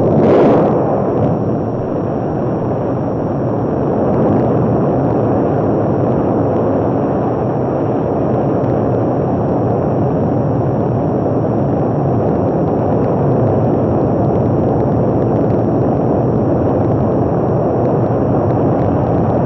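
Saturn V launch: its five F-1 first-stage rocket engines make a loud, steady, dense rumble that sets in suddenly at the start.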